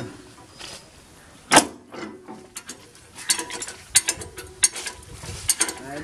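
A hand spanner working the blade bolts of a power tiller's rotary tiller, metal on metal. There is one sharp clank about a second and a half in, then a run of quick, irregular clicks from about three seconds on.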